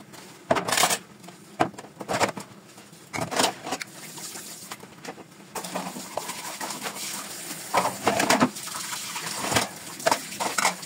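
Dishes clattering as crockery and a plastic container are handled and washed in a kitchen sink, a string of sharp knocks and clinks. A tap starts running about halfway through and keeps a steady hiss under the clatter.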